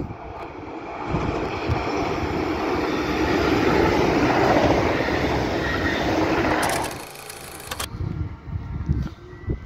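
A Régio 2N (Z 26600) double-deck electric multiple unit passing below, a steady rush of wheels on rail that swells to a peak in the middle and then cuts off. After that there is quieter outdoor noise with gusts of wind on the microphone.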